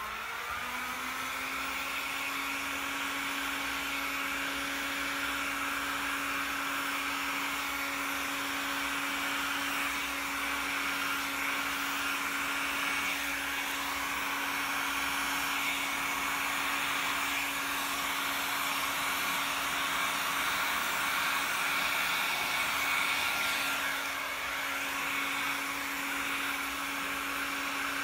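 Hair dryer switched on at its highest blower setting, spinning up within the first second and then running steadily with a constant motor hum and rush of air, blown across wet epoxy resin.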